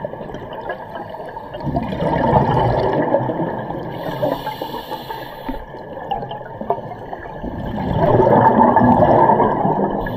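Scuba diver breathing through a regulator underwater. A long burst of bubbling exhaled air comes about two seconds in and again near the end, with the thin hiss of an inhale through the regulator between them. The bubbling exhales are the loudest part.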